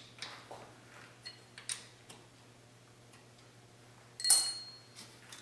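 Light metallic clicks from hands working a stopped metal lathe's slides and locks, with one sharper metal clink about four seconds in that rings briefly.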